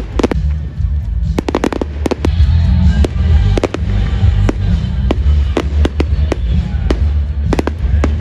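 Fireworks display: an irregular string of sharp bangs and crackles over a heavy steady low rumble, with music playing underneath.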